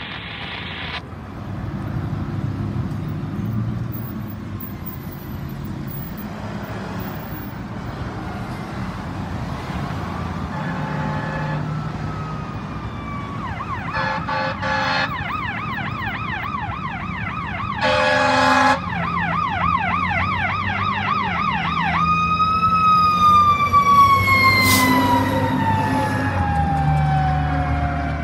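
Fire engines responding under emergency signals: a fast up-and-down yelp siren with several short horn blasts, the loudest about 18 seconds in. Near the end a long siren tone falls slowly in pitch. Under it all is the low rumble of heavy truck engines and traffic.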